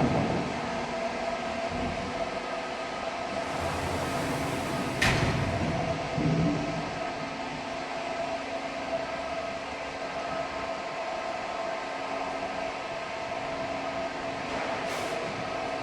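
CNC laser welding machine for tanks running: a steady mechanical hum with a few held whining tones. There is a sharp click about five seconds in and another near the end, and a lower motor tone sets in about six seconds in.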